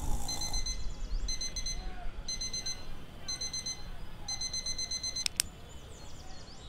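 Digital alarm clock beeping: short runs of quick, high electronic beeps about once a second, five times over. About five seconds in there is a single sharp click, and the beeping stops.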